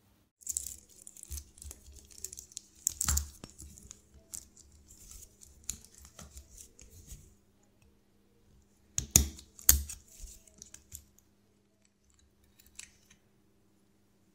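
Light scraping and clicking of small watchmaker's tools on a stainless steel watch bracelet, with two sharp metal clicks about nine to ten seconds in.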